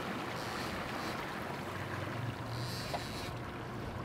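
Twin 150 hp outboard motors running steadily at trolling speed, a low hum under the rush of water along the hull and wake.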